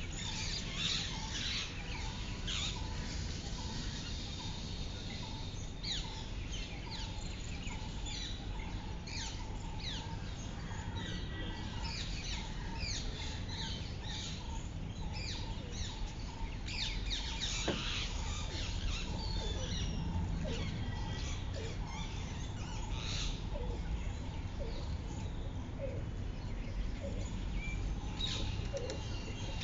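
Small birds chirping and calling many times over a steady low background rumble.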